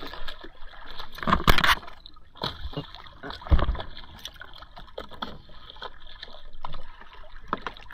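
Choppy seawater sloshing and splashing at the surface right beside a swimmer and a small boat's hull, in irregular surges with a louder splash about a second and a half in.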